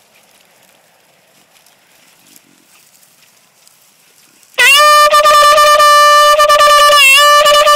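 Hunting horn blown in one long, steady, loud note of about four seconds, starting about halfway in, with a brief dip in pitch near the end.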